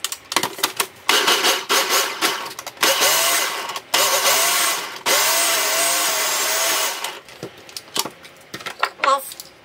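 Electric food chopper grinding cooked chickpeas for hummus, run in several bursts with short breaks. Its whir rises and dips in pitch as it churns them. Near the end, once the motor stops, there is clattering as the motor head is lifted off the bowl.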